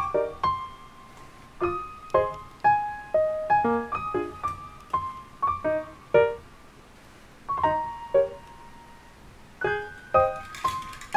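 Background piano music: a gentle melody of separate struck notes and short chords, with a brief lull a little past the middle.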